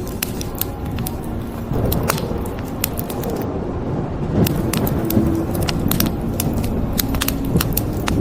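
Wood fire crackling, with frequent sharp irregular pops over a steady low rumble from rain and the fire.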